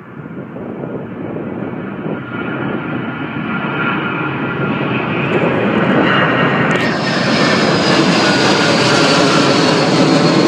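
Four-engine BAe 146 / Avro RJ jet airliner climbing out low overhead. The roar of its turbofans builds steadily and is loudest in the second half, with a high engine whine over it that sharpens a little past halfway.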